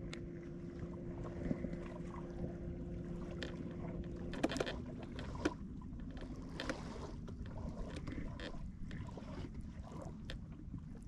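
A small boat moving slowly on calm water, with a low steady hum, light water and wind noise, and a few soft knocks near the middle.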